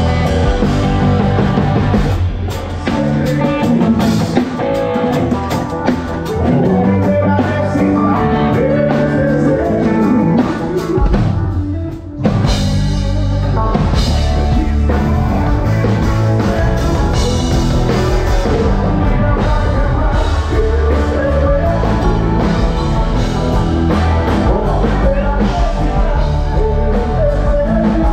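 Live band playing amplified music with drum kit and guitar, and a singing voice over it. The music thins out briefly about twelve seconds in, then the full band comes back in.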